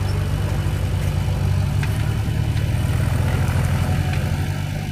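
Farm tractor's engine running under load as it pulls a trailer heaped with soil, a steady low pulsing note that eases off slightly near the end as the tractor moves away.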